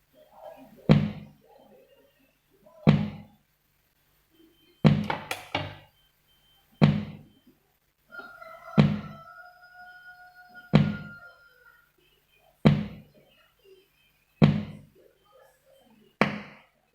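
Advance H-24A portable speaker box cutting out and coming back on over and over, a loud thump about every two seconds with brief snatches of music between. This is the 'jedu jeduk' on-off fault that seems like a flat battery though the battery is charged, traced to a weakened filter diode.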